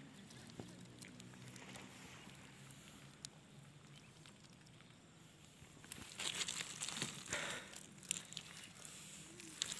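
Nylon fishing net being handled on riverbank gravel: soft rustling and crackling with sharp clicks of pebbles, loudest for a couple of seconds past the middle, over a faint steady low hum.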